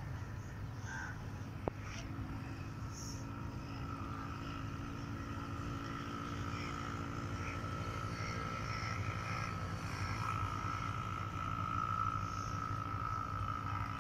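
Distant diesel locomotive of an approaching freight train: a low engine drone with a steady high-pitched whine, growing slowly louder.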